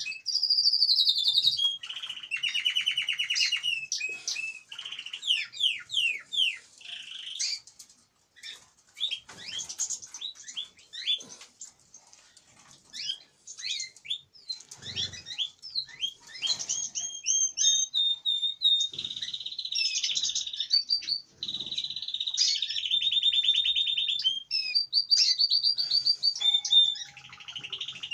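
Caged canaries singing: long rolling trills of fast repeated notes, alternating with quick chirps and twitters and short pauses.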